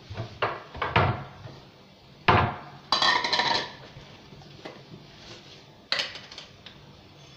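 Kitchen handling noises from a plastic tahini jar being worked over a pot: several separate knocks and clatters, with a longer rattling clatter about three seconds in and a last knock about six seconds in.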